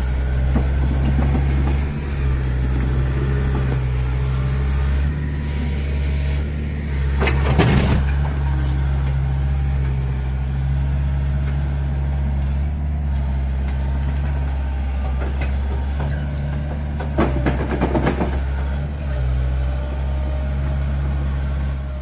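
Mini crawler excavator's diesel engine running steadily under work. Two short bursts of clatter cut through, about a third of the way in and again a little after the middle.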